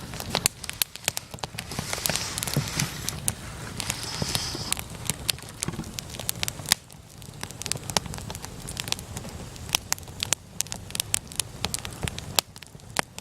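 Wood bonfire burning and crackling: frequent irregular sharp pops and snaps over a steady low rush of the flames, with a brief hiss about four seconds in.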